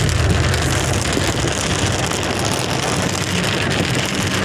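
Steady rumble of a moving vehicle heard from inside the cabin, with a continuous hiss of rain and tyres on a wet road.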